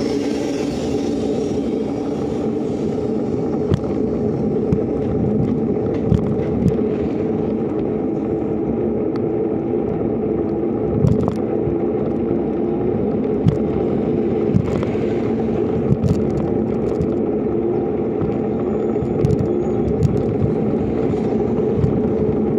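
Bicycle rolling along a concrete road: a steady rumble of tyre and wind noise, with sharp knocks every second or two as the wheels cross joints and cracks in the concrete.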